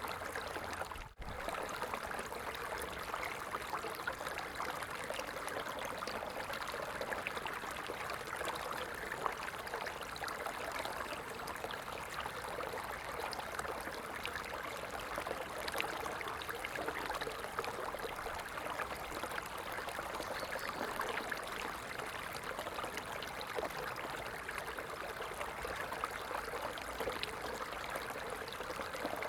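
A stream flowing steadily, a constant rush of water with fine trickling and splashing. The sound drops out for a split second about a second in.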